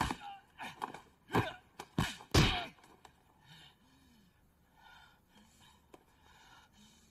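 Dubbed punch and kick impact effects from a 1980s Hong Kong martial-arts fight: a fast string of about seven hits in the first two and a half seconds. Then quieter breathing and gasps.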